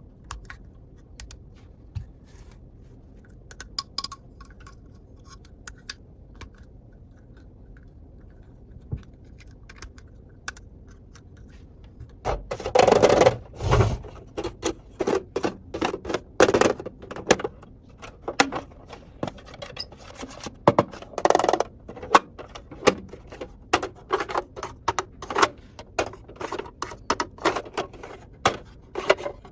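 Small plastic toy pieces being handled: scattered light clicks at first, then from about twelve seconds in a busy run of louder clicks, taps and rustling.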